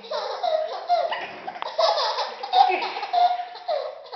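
Baby laughing hard in a run of short, high-pitched bursts of belly laughter, one after another.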